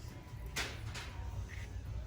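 Low steady background rumble of a shop interior, with two short swishing noises, about half a second and one second in.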